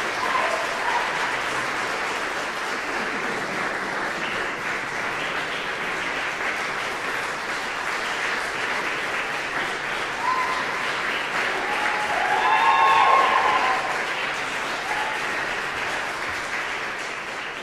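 Audience applauding steadily, with a few cheers rising about ten and thirteen seconds in; the applause thins out near the end.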